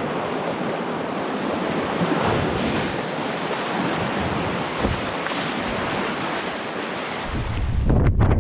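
Steady rushing of river water, a dense even hiss. Near the end, low buffeting on the microphone joins in.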